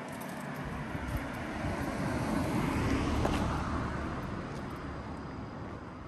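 A car passing by, its tyre and engine noise swelling to a peak about three seconds in and then fading away.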